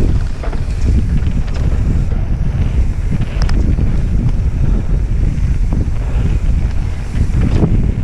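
Wind buffeting a helmet camera's microphone as a mountain bike runs down a dirt downhill trail, with tyres rolling over dirt and loose stones and scattered clicks and rattles from the bike.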